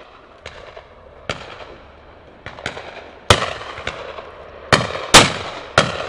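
Shotguns firing from several guns, some near and some distant: about ten shots at irregular spacing, each trailing off in an echo, the loudest about three seconds in and just after five seconds.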